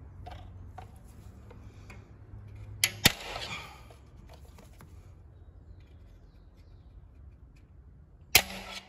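Small steel tension spring of a car side mirror's adjustment mechanism being stretched and hooked into place inside the plastic housing: a few faint ticks, then two sharp metallic snaps about three seconds in and another near the end, each followed by a brief ring.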